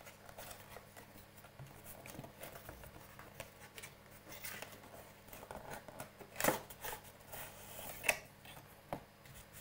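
Cardboard mouse box being opened by hand: the end flap lifted and the inner cardboard tray slid out of its printed sleeve, with quiet scraping and rustling and a couple of sharper knocks, the loudest about six and a half seconds in and another about eight seconds in.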